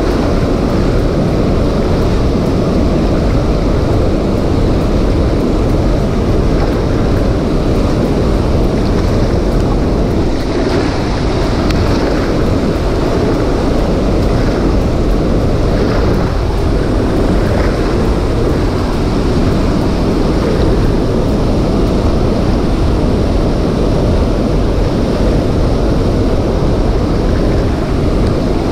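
Loud, steady rush of water pouring out of a concrete dam outlet into a reservoir.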